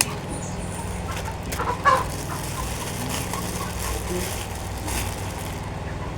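Chickens clucking, with a louder short call just under two seconds in, over a steady low hum.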